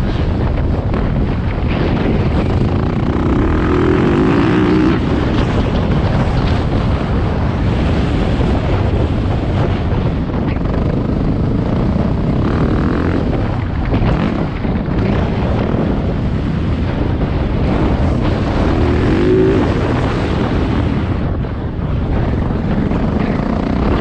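Dirt bike engine revving up and down as it is ridden round a motocross track, its pitch rising and falling several times, under heavy wind buffeting on the microphone.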